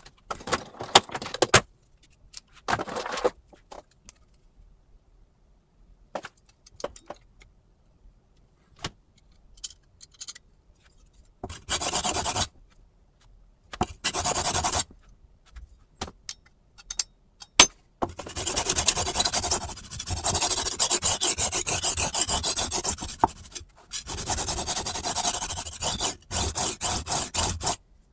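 Metal clicks and rattles as a knife-sharpening angle guide and its steel rods are handled. Then come short bursts of scraping and, from about two-thirds of the way in, long stretches of rapid rubbing and scraping as a kitchen knife is fitted to the guide, all sped up to triple speed.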